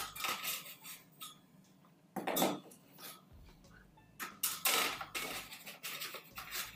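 Thin steel strips of a modular hearth pad kit being handled and pressed into the seams between the panels. Metal scrapes and clatters come in several bursts, with a loud one a little after two seconds and a longer cluster from about four seconds.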